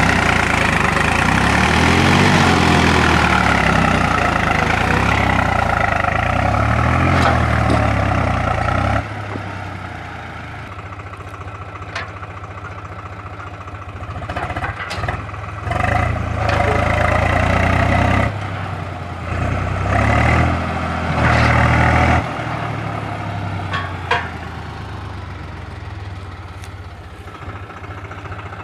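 Swaraj 834 tractor's three-cylinder diesel engine running hard under load, straining to pull a disc harrow with its rear wheels dug into soft soil. Loud for the first nine seconds, then it drops back, with two short rises in engine speed later on.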